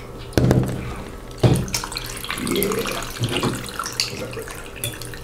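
Iced tea poured from a can into a tall glass of ice, a running trickle and splash of liquid over the ice. Two sharp knocks come in the first second and a half.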